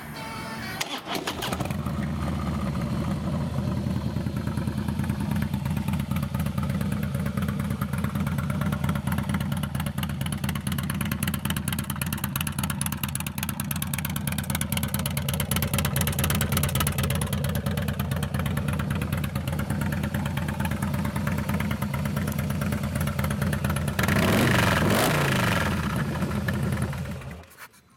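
2016 Harley-Davidson Softail Slim S's 110-inch Screaming Eagle V-twin starting up, then idling steadily. Near the end it is blipped once and then switched off. It runs through stock pipes whose baffles appear to have been taken out, making it pretty loud.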